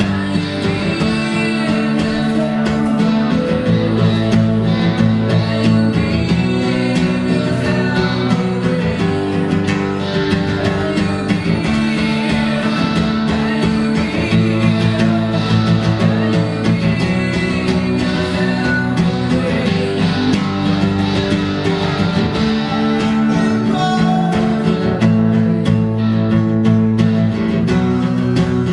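Live guitar music: an acoustic guitar strummed alongside an electric guitar, playing continuously through the bar's stage speakers.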